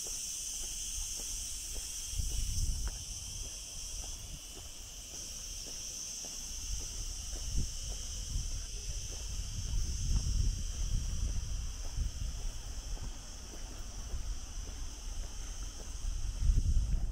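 Steady, high-pitched chirring of insects, unbroken, with an uneven low rumble underneath.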